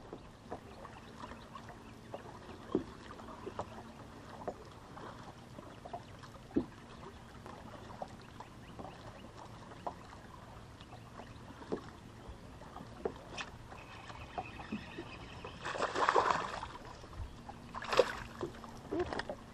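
Small scattered clicks and knocks of a rod and reel being worked from a bass boat's deck, over a faint steady hum. Near the end come two louder noisy bursts, the second, sharper one as the rod is swept up and a bass is hooked.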